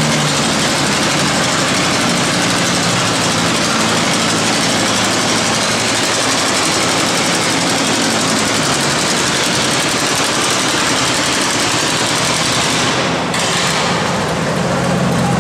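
John Deere Model D's two-cylinder engine running under full load while the tractor drags a weight-transfer sled through the dirt. About thirteen seconds in, the sound eases abruptly as the pull ends.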